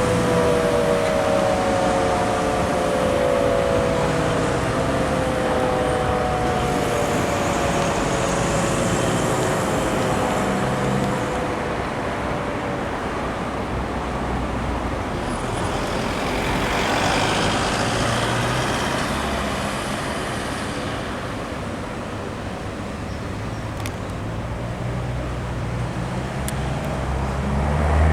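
Fire station call-out siren, a rotary siren, winding down: its several tones slide lower in pitch and fade out over the first ten seconds or so as the rotor slows. Road traffic runs underneath throughout, with a vehicle passing louder about halfway through.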